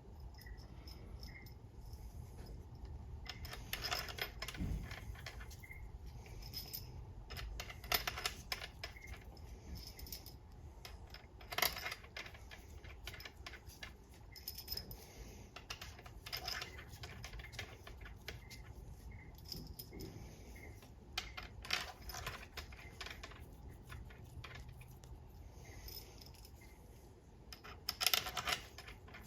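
Hand ratchet clicking in short rapid bursts as bolts are run into a ZF 8HP70 transmission one after another, with small metallic clinks of bolts and tools between the bursts.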